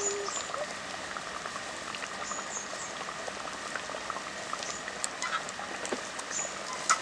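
Thick chicken and potato curry bubbling at a steady simmer in an iron wok, the gravy popping and blipping with many small pops; the curry is nearly done.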